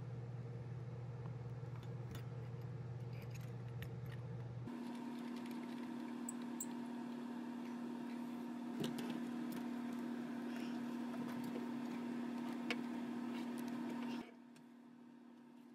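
Light metallic clinks of a spark plug socket and chrome extension being handled and lowered into the spark plug tube, over a steady low hum that shifts in pitch about five seconds in and drops away near the end.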